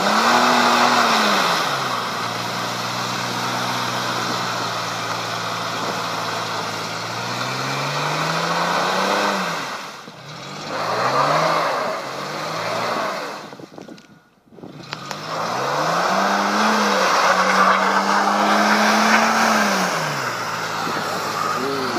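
Mercedes-Benz M-Class SUV engine revving hard while its wheels spin in deep mud, the car stuck. The revs climb, hold and fall back in three spells, with a short break about two-thirds of the way through, over the hiss of tyres churning mud and water.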